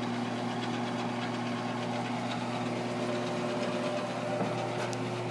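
Delta Rockwell variable-speed drill press running steadily at its lowest speed, 350 rpm, with a steady electric hum.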